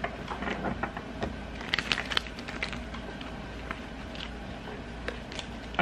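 A low steady hum with scattered light clicks, a few close together about two seconds in and a sharper click near the end.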